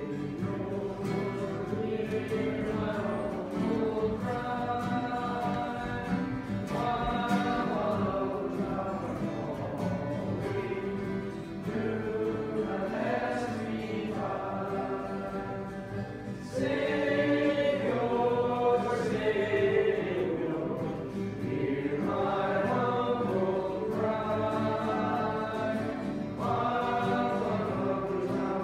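Voices singing a gospel song with strummed acoustic guitar accompaniment, in phrases of a few seconds each.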